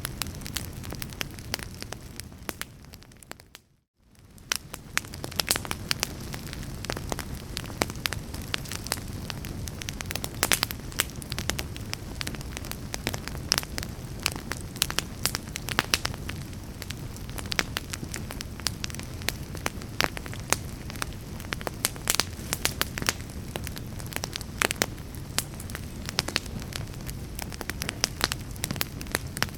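Wood fire burning, with many sharp crackles and pops over a steady low rush. The sound fades out for a moment about four seconds in, then comes back.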